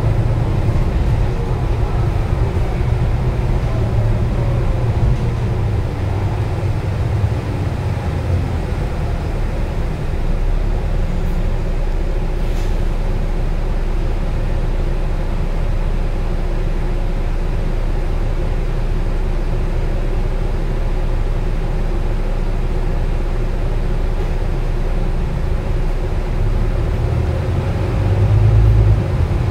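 Volvo B9TL double-decker bus with a ZF EcoLife six-speed automatic gearbox under way on the expressway, heard from inside the passenger saloon: steady diesel engine and road rumble, with a faint drivetrain whine that falls in pitch over the first few seconds. A brief louder rumble comes near the end.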